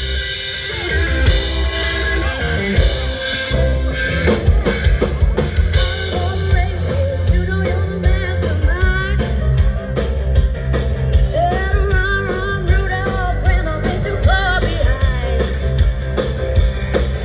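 Live band playing an up-tempo rock intro, with drum kit, guitar and a strong bass line keeping a steady beat.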